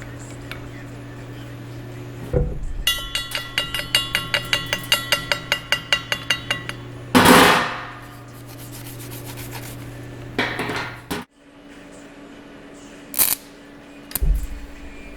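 A hammer rapping steel in a quick run of about five blows a second, each blow ringing with a clear metallic tone. Two loud rushing bursts follow, then a steady machine hum cuts off, and there are two short knocks near the end.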